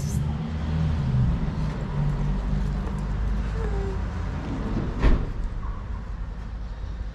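Low, steady rumble of a motor vehicle's engine running close by, easing off in the second half, with a single sharp thump about five seconds in.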